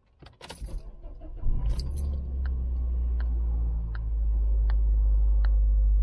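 Keys jangling as the ignition is turned, then the SUV's engine starts and runs with a low, steady rumble. Over it, a faint light click repeats about every three-quarters of a second: the only response from the wired-in dashcam, which is defective.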